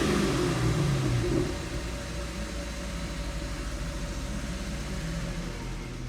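2015 Chevrolet Camaro engine held at about 3000 rpm, then released about a second and a half in and settling back to a steady idle. It is running after a damaged cylinder-6 injector was replaced.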